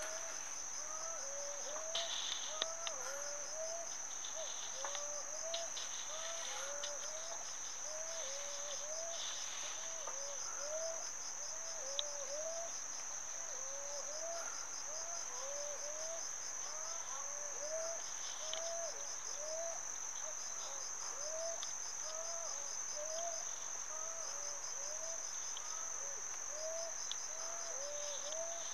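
Crickets trilling steadily at a high pitch, with a lower, short rise-and-fall call repeating about three times every two seconds.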